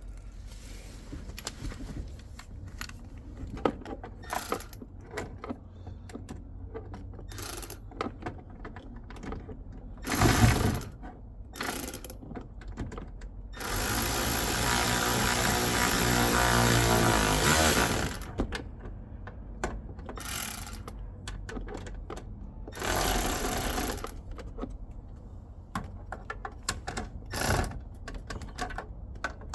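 Mechanic's tool work on a car: scattered clicks and clatter of hand tools and mechanisms, with a louder steady noise lasting about four seconds near the middle.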